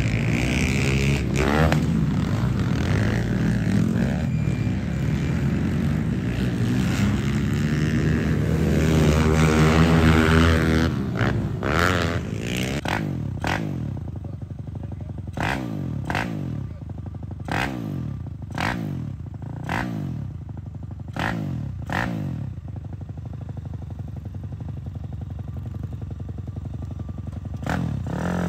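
Pit bike engines running hard, their pitch rising and falling as they rev. About halfway through, a single small pit bike idles, with quick throttle blips about once a second, then settles to a steady idle.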